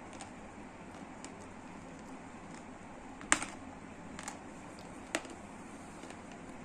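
A handful of light, scattered clicks over a steady background hiss, the sharpest about halfway through and another a couple of seconds later.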